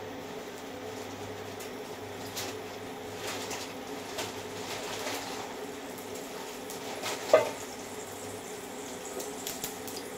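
Cumin seeds frying in hot mustard oil in a nonstick kadhai: a steady low sizzle with scattered small crackles over a faint steady hum. One louder short knock or clink comes about seven seconds in.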